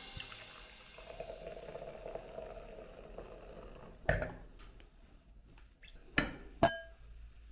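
Red wine poured into a large wine glass, a quiet pour lasting a couple of seconds. Then a sharp knock about four seconds in, and near the end two quick clinks of glass, the second ringing briefly.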